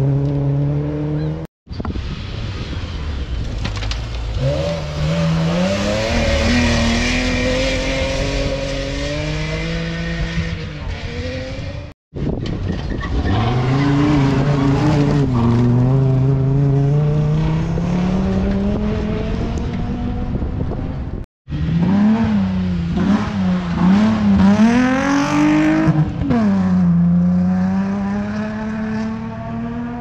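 Rally cars at full speed on a gravel stage, heard in several short clips split by brief silent cuts. In each clip an engine revs hard, its note climbing and then dropping with each gear change as the car comes by. In the last clip the revs rise and fall quickly several times.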